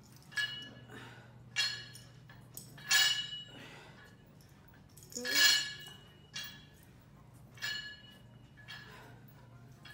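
Metal barbell clinking with a short ring at each lift, about seven times at roughly one-second intervals, over a steady low hum.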